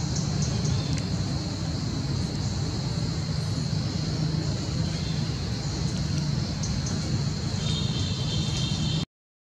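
Steady low outdoor rumble with a constant high hiss over it, no distinct events; the sound drops out completely for a moment near the end.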